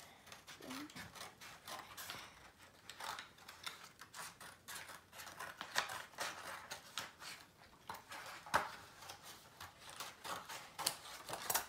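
Scissors snipping through stiff paper in an uneven run of cuts, with the paper rustling as it is turned. A few snips stand out sharper than the rest, the loudest a little past the middle.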